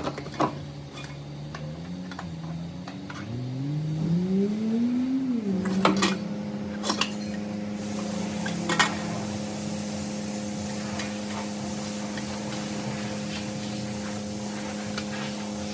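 A motor hum that climbs in pitch in a few steps and a glide over the first few seconds, then settles to a steady drone, with several sharp metallic clicks along the way.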